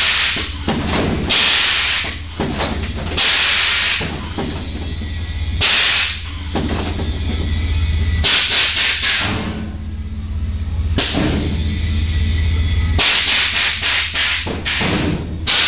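Air-ride suspension on a lowered Chevy pickup hissing in repeated short bursts, about eight of them a second or two apart, as air is let through its valves and the body drops, over a steady low hum.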